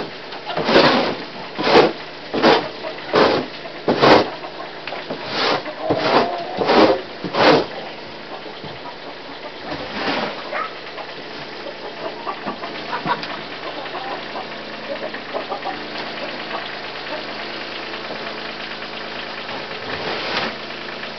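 Plastic snow shovel scraping across a concrete floor and tossing wood-shaving bedding, in quick repeated strokes for the first seven or eight seconds, then one stroke about ten seconds in and another near the end. A tractor engine idles steadily underneath.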